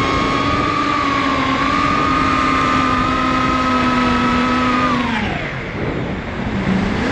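FPV quadcopter's electric motors whining at a steady high pitch over a rushing noise. About five seconds in, the whine drops sharply in pitch as the throttle is eased off.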